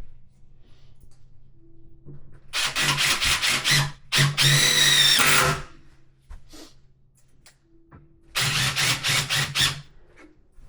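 Power drill-driver driving long 4x70 wood screws into a wardrobe carcass panel, the motor whining under load. There are two runs close together about three to five seconds in, and another near the end.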